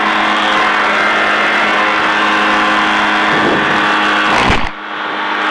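Quad City Challenger II ultralight's engine running at a steady drone. Its owner suspects a broken cooling-fan belt behind a high cylinder head temperature. Near the end a brief rustle ends in a sudden drop of the background noise, and the engine tone carries on.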